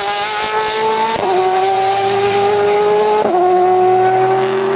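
A car engine held at high revs, dropping sharply in pitch at two upshifts about a second and three seconds in, as if accelerating through the gears.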